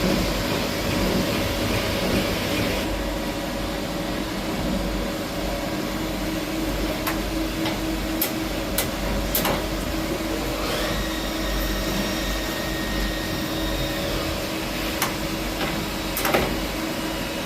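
CNC machine-shop noise: machines running with a steady hum and a few steady tones, broken by occasional sharp clicks and knocks. A high whine comes in about two thirds of the way through and stops a few seconds later.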